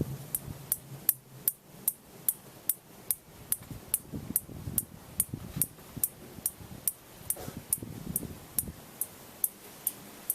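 Sears (Emerson) Casablanca Designer Series ceiling fan running, with a sharp, high-pitched tick repeating evenly about twice and a half a second over a faint low hum.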